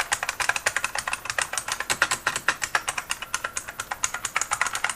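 IBM Model M keyboard being typed on fast: a dense run of sharp clicks, many keystrokes a second, from its buckling-spring key switches, a clicky, tactile switch type.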